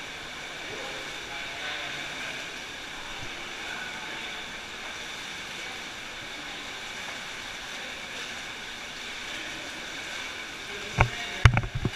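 Steady rush of a stream flowing through a cave, with water splashing as people wade over rocks. A few sharp knocks come close together near the end.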